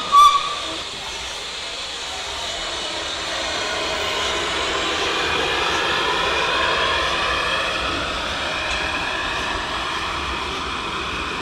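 Narrow-gauge steam locomotive and its coaches running slowly alongside a platform, a steady rumble with faint high squeals and hiss that swells to about six seconds in and then eases. A short, loud pitched toot sounds right at the start.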